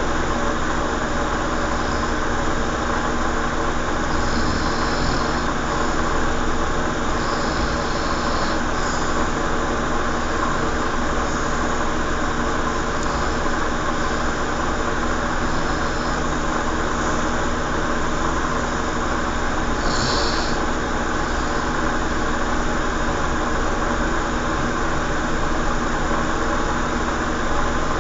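A steady machine hum made up of several fixed tones over a noisy hiss, unchanging throughout, with a few faint brief higher sounds along the way.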